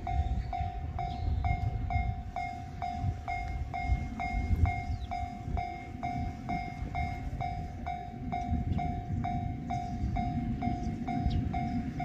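Japanese railway level-crossing warning bell ringing steadily at a little over two dings a second, signalling that a train is approaching. A low rumble runs underneath.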